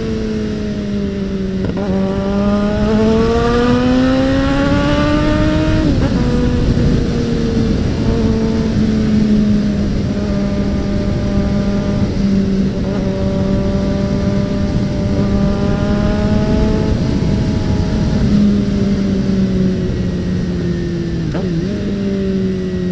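Suzuki Bandit 650N inline-four motorcycle running through its loud aftermarket exhaust while riding. The revs climb for a few seconds, drop at a gear change, then hold steady at cruising speed. Wind rushes over the microphone throughout.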